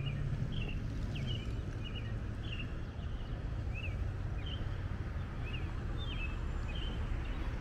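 A songbird chirping over and over, short high calls about once or twice a second, over a steady low rumble of outdoor background noise.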